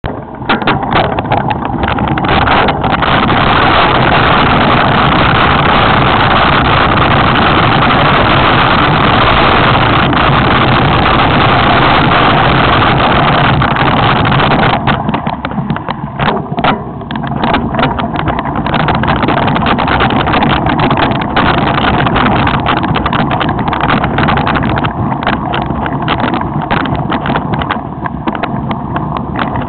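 Wind rushing over the camera microphone on a mountain bike descending a rough downhill trail, with the bike rattling and knocking over the ground. The rush is steady for the first half, then breaks up into rapid knocks and rattles from about halfway.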